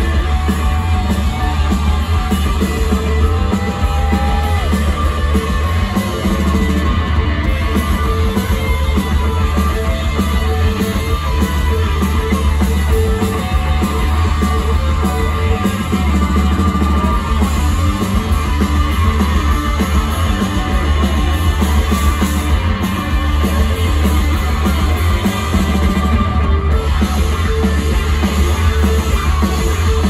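Live psychedelic rock band playing loudly: several electric guitars, bass and a drum kit in a dense, unbroken wall of sound with heavy bass, heard from the audience.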